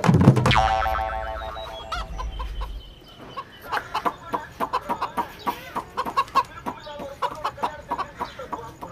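A music cue ends on a ringing note that fades over about two seconds. From about halfway in, chickens cluck rapidly and repeatedly, several calls a second.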